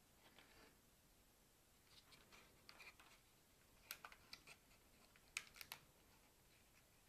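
Faint handling sounds of adhesive strips being applied to a small plastic RC blimp gondola: soft rustles and a few sharp little clicks, bunched about four seconds in and again a little past five seconds.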